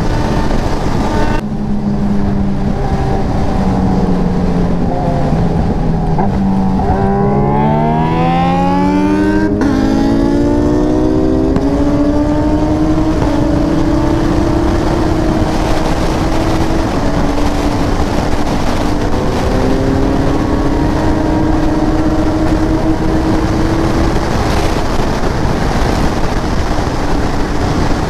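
Sport motorcycle engine under way at highway speed with heavy wind rush. The revs ease down at first, then climb in one long pull with a brief break partway for a gear change, and hold high for the rest.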